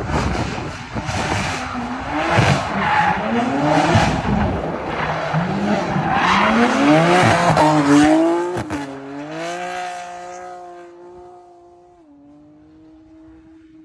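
A car drifting: the engine revs up again and again while the tyres screech. About two-thirds of the way in the screech stops, and a steadier engine note fades away over the last few seconds.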